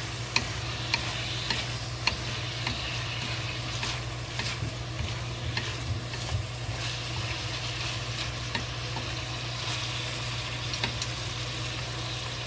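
Sliced pork and fennel sizzling in hot oil in a pan while being stir-fried, with irregular sharp clicks and scrapes of the spatula against the pan, about one or two a second.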